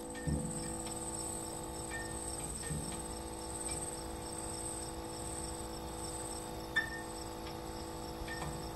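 Crickets chirping in a steady, finely pulsing high trill, over a low steady hum.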